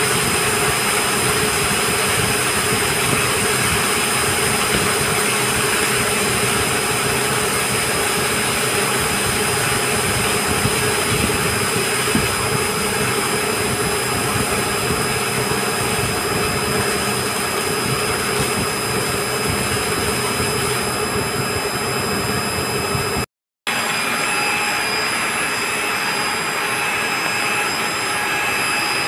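Steady, loud running noise of a reverse-osmosis plant's pumps and motors, a dense hiss with several steady whining tones over it, and water jetting from the membrane pipework. The sound cuts out for a split second about 23 seconds in.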